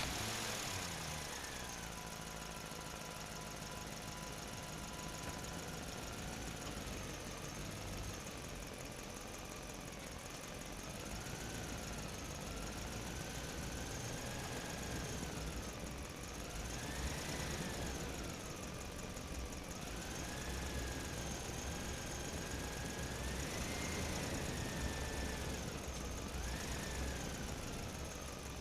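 An engine running steadily, its pitch rising and falling slowly several times as it speeds up and slows down.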